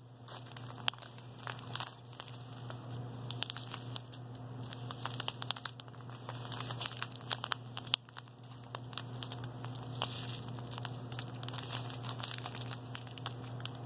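Small clear plastic bags of diamond-painting drills crinkling as they are handled and swapped one after another, in irregular crackles over a steady low hum.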